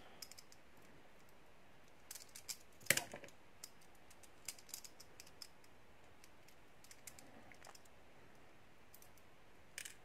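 Faint, scattered small metallic clicks and taps as a Lockwood 334C45 padlock is taken apart with a small hand tool; the loudest is a quick cluster of clicks about three seconds in, with another click just before the end.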